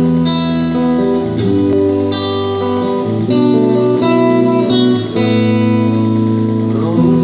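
Guitar playing a chord progression, with a new chord struck and let ring about every second or so.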